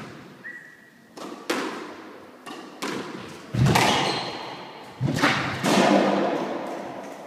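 Squash rally: the ball cracks off the rackets and thuds against the court walls, about five sharp hits a second or so apart, each echoing through the court.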